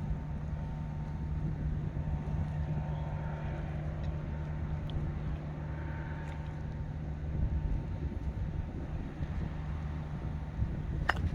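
A steady low engine hum, and near the end a single sharp click of a golf club striking the ball.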